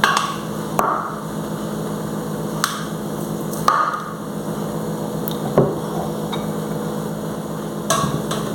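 Scattered knocks and clinks of kitchen utensils against a cooking pan while sugar is being put in, over a steady low hum.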